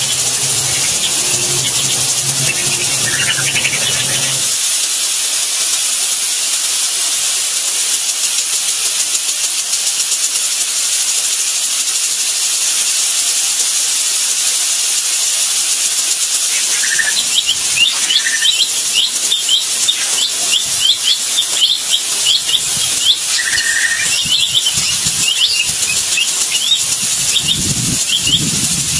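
A steady, high-pitched hiss throughout, with a low rumble that stops about four seconds in. From just past halfway, weaver birds give a rapid run of short, high chirps.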